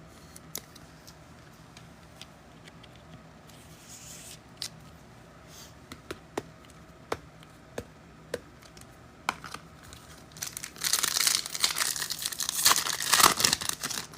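A trading-card pack wrapper being torn open and crinkled, a loud dense crackle lasting about three and a half seconds near the end. It is preceded by scattered light clicks and taps.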